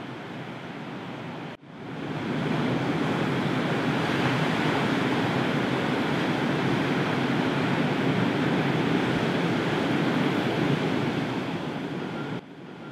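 Sea surf washing onto a wide sandy beach, with wind. It is a steady rushing wash that drops out briefly about a second and a half in, comes back louder, and falls back quieter near the end.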